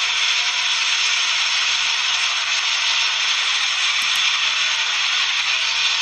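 Steady, even hiss from the playback of old steam-train film footage, with no chuffing rhythm to be heard.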